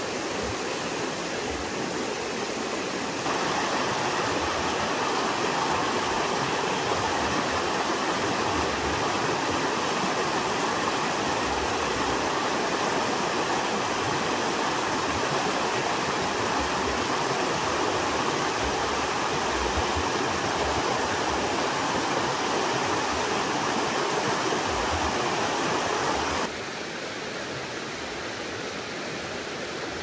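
Shallow, rocky mountain stream rushing steadily over stones and small riffles. The sound steps up in level about three seconds in and drops to a softer flow near the end.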